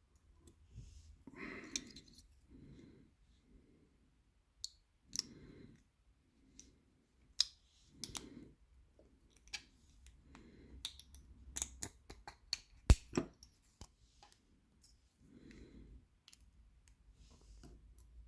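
Irregular small metallic clicks and taps of tools working on a disassembled pin-tumbler challenge lock, with a few sharper clicks about seven and thirteen seconds in.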